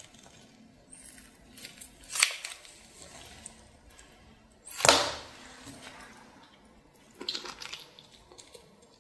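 Kitchen scissors snipping through a sauce-coated cooked giant octopus tentacle: a few sharp cuts, the loudest about five seconds in. Near the end, a bite into the cut piece.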